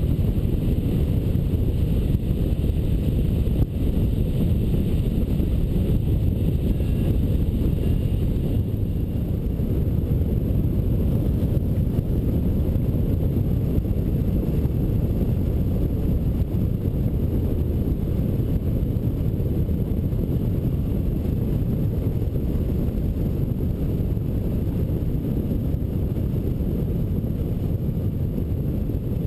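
Airflow over a hang glider in flight buffeting the wing-mounted camera's microphone: a steady, low wind rush.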